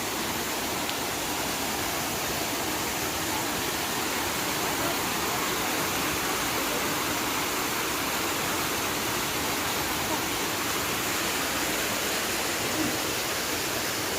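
Flowing river water, a steady rushing hiss with no breaks or changes.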